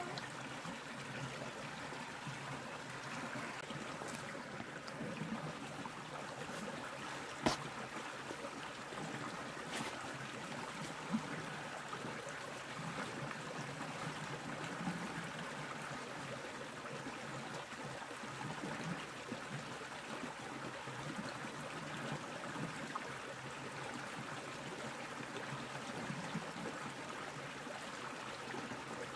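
Steady rush of a flowing stream, with a few sharp clicks, the loudest about seven and a half seconds in.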